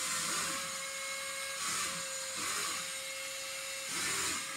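Wall-climbing toy RC car's suction fan running with a steady high whir that holds it to the wall, while a lower whine rises and falls several times as the car drives.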